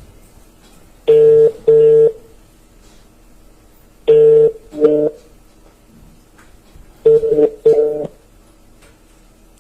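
Telephone ringback tone of an outgoing call that is ringing unanswered: a double ring, two short beeps close together, repeating three times about every 3 seconds.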